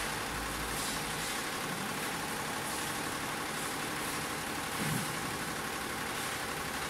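Butterfly ten-head, nine-needle embroidery machine running steadily at 750 rpm while stitching garments, a dense, even mechanical noise. A short low knock comes about five seconds in.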